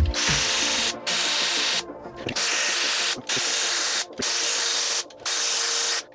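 Cordless power tool run in about six short trigger bursts, each under a second, as bolts are backed out during the engine teardown to remove the crankshaft.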